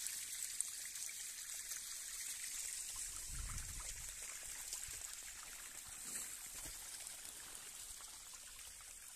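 Waterfall water trickling and splashing down rock: a steady hiss that grows a little fainter toward the end, with a brief low bump about three and a half seconds in.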